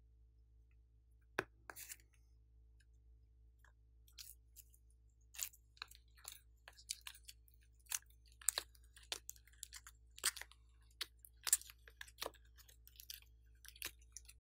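Slime being pressed, rubbed and pulled over a plastic eyeshadow palette, giving sticky clicks and small crackling pops that come thick and uneven from about four seconds in. One sharp click stands alone about a second and a half in.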